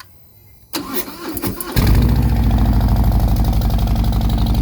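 Car engine cranked by the starter for about a second, catching and settling into a steady idle, heard through an exhaust fitted with stock Samson fishtail tips.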